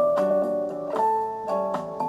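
Background music: a gentle melody of sustained pitched notes, changing every half second or so.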